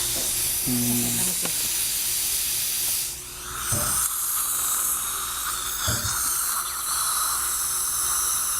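Dental equipment hissing steadily. About three seconds in, a steadier, higher whine joins the hiss and holds.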